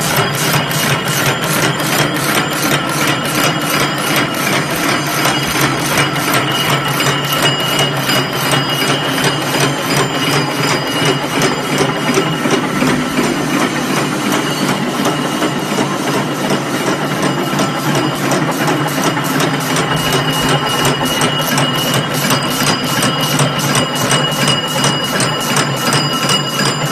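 Double-strand barbed wire machine running: a loud, steady mechanical clatter with rapid, evenly spaced clicking.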